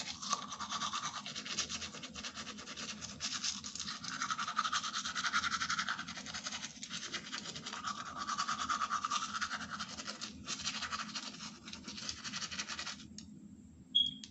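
Manual toothbrush scrubbing teeth in fast back-and-forth strokes through foamy paste, getting louder twice along the way and stopping about a second before the end. A brief high-pitched blip comes just after it stops.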